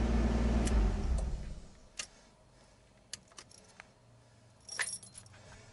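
Car engine running steadily, then winding down and stopping about a second and a half in. After it come scattered light clicks and a short jangle of keys near the end.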